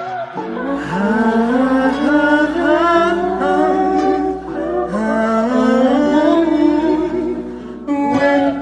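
A singer humming and vocalising a wordless melodic intro in two long phrases, each opening with an upward slide in pitch, with a steady low hum beneath.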